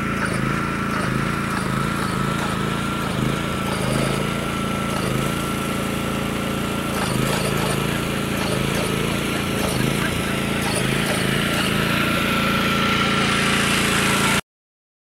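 Lure-coursing machine's motor running steadily as it pulls the lure line around the course: a low engine hum with a steady high whine above it. It cuts off suddenly near the end.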